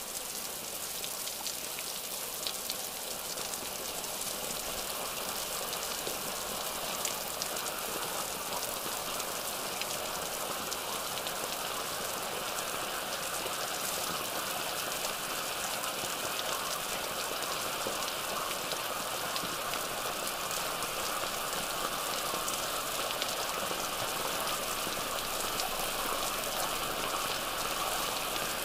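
Steady rain falling, an even hiss with faint scattered drop taps, growing slightly louder over the span.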